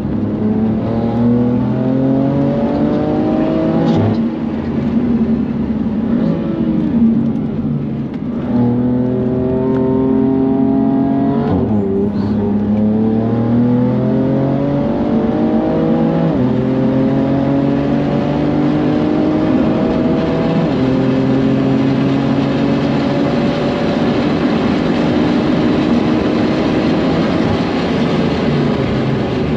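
BMW F80 M3's twin-turbo straight-six accelerating hard under full throttle, heard from inside the car. The pitch rises through each gear and drops at each of about four upshifts, over steady tyre and road noise.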